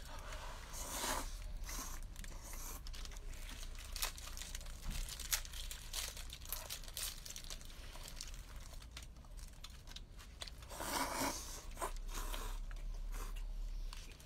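Close-up mouth sounds of instant noodles being eaten with chopsticks: wet clicks of chewing and smacking throughout, with longer slurps about a second in and again around eleven seconds.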